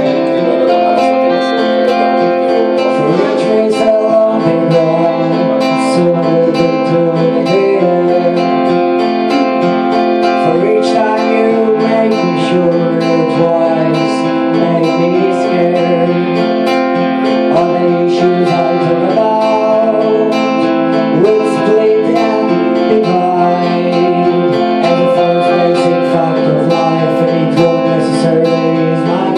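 Live guitar duo: a steel-string acoustic guitar strummed steadily, with a solid-body electric guitar playing melodic lines over it.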